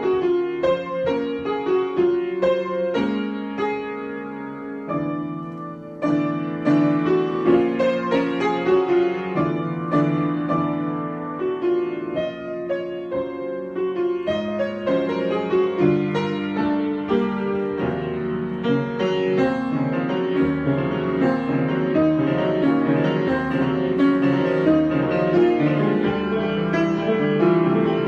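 Solo piano improvisation: busy runs of notes that ease off briefly around four seconds in, come back louder at six seconds, and later settle over held low bass notes with fuller chords.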